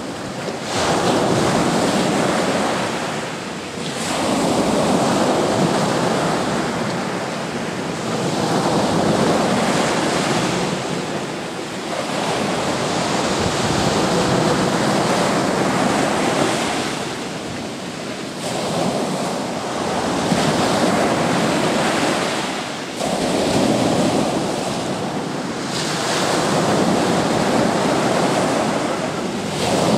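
Sea surf breaking on the beach, the roar of the waves swelling and easing every three to four seconds.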